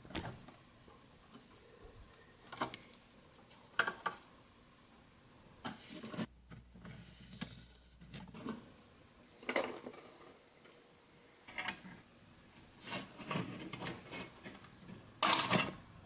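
Steel needle-nose pliers clicking and scraping against the pressed-steel body of a vintage Tonka toy truck as its metal tabs are pried and bent, with scattered taps and rubs of small metal parts. The clicks come irregularly, every second or two, with the loudest cluster near the end.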